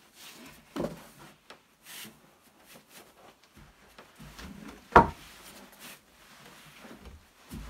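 Rustling and rubbing as a felt trunk liner is laid into a car's trunk and pressed flat by hand, with a sharp knock about five seconds in.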